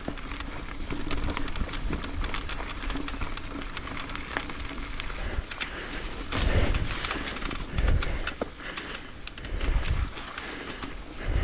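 Mountain bike moving along a dirt trail: tyre and trail noise with many small clicks and rattles, and several low thumps in the second half.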